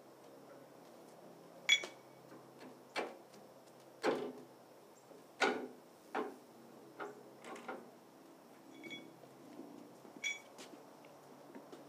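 Irregular metallic clinks and knocks from steel parts of a three-bottom plow frame being handled, about nine over the span; a few ring briefly like struck steel.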